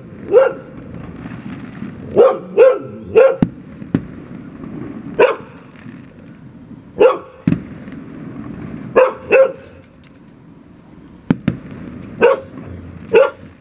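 A dog barking over and over, in single barks and quick pairs and triples, with a few sharp cracks of fireworks going off between the barks.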